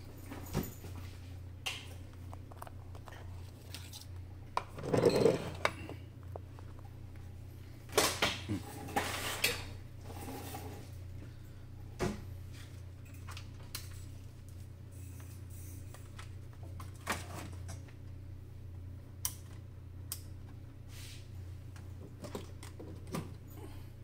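Small tools and parts clicking and clattering on an electronics workbench, loudest about five seconds in and again around eight to ten seconds in, over a steady low hum.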